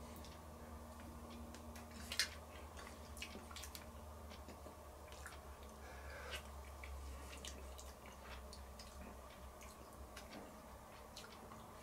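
Stew simmering in an open Dutch oven: faint, irregular bubbling pops and small clicks, with one louder click about two seconds in. A brief slurp from a tasting spoon comes around six seconds in.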